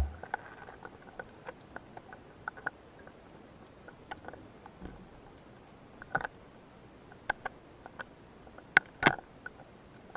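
Underwater ambience picked up through an action camera's housing: sparse short clicks and ticks, with a few louder ones about six seconds in and a cluster around nine seconds.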